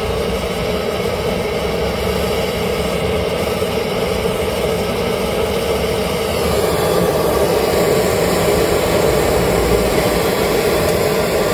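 Gas blowtorch burning with a steady, loud hiss, heating the seized NOx sensor's threaded boss on the exhaust to free it.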